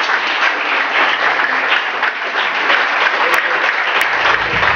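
Small crowd applauding steadily, with music starting near the end.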